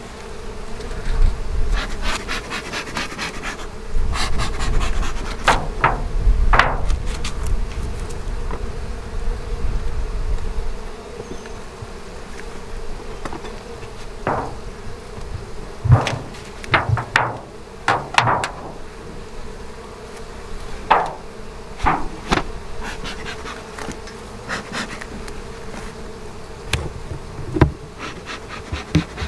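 Honeybees buzzing around an opened hive: a steady hum that holds one pitch. Scattered wooden and metal knocks and clicks come from the hive's outer cover being handled and lifted off, most of them in the middle of the stretch, with a low rumble during the first ten seconds or so.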